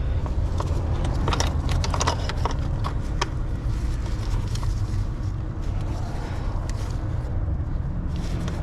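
Scattered light clicks and taps as the wiring connector is worked onto the new engine cooling fan, most of them in the first few seconds, over a steady low rumble.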